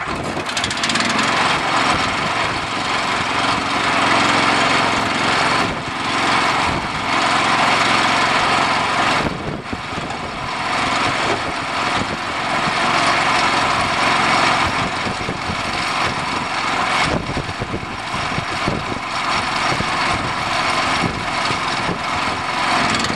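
John Deere 210 lawn tractor's newly swapped-in engine running on its first test after the motor swap. It runs steadily, dipping briefly in level a few times.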